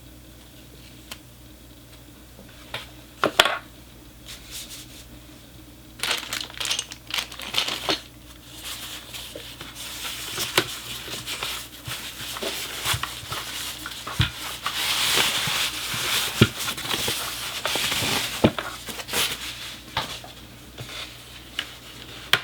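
Packaging crinkling and rustling as it is handled and pulled open, with scattered clicks and knocks. The crinkling is densest in the middle stretch.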